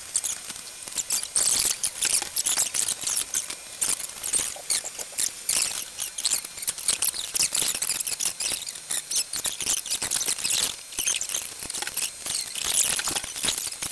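Plastic bags and paper packaging crinkling and rustling as they are handled and opened, an irregular stream of crackles.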